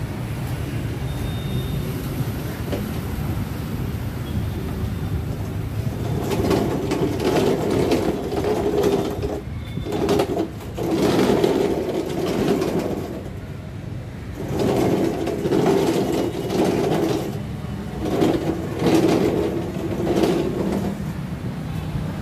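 Small hard caster wheels of a homemade metal-topped push trolley rolling over paving stones, in several runs of two to three seconds with short pauses between as the rider shoves himself along by hand. For the first few seconds only steady street traffic noise is heard.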